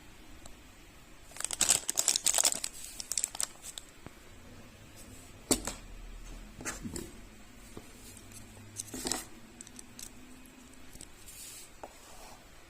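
Plastic packaging crinkling as it is handled during an unboxing, with a dense burst of crackling about a second and a half in. A few separate sharp clicks and knocks follow later on.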